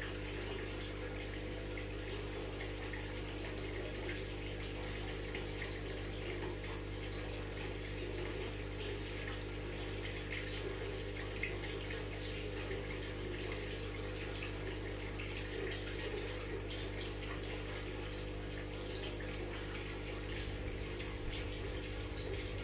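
Aquarium filter running: a steady trickle and bubble of water over a constant low electrical hum from the pump.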